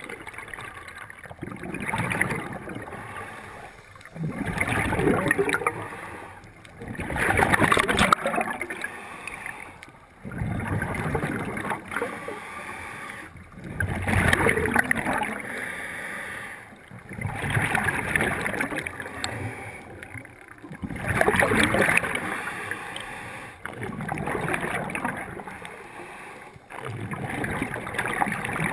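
Scuba diver breathing through a regulator underwater: bursts of breath and bubbling that rise and fall every three seconds or so.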